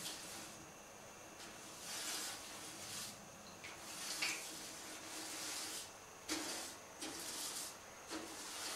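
A brush scrubbing a wet copper relief panel in a tray of washing solution, in faint, irregular strokes, while soot and acid residue are washed off the metal.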